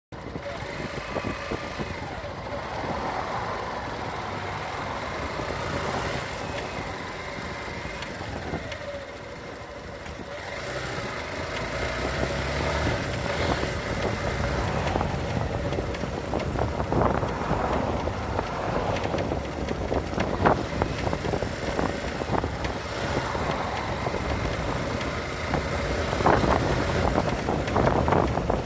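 Yamaha Factor 150 motorcycle being ridden: engine and road noise with irregular sharp clicks from the front end, thicker in the second half. These clicks are the strange noise that began after the 10,000 km service and shows up over rough surfaces such as cobblestone.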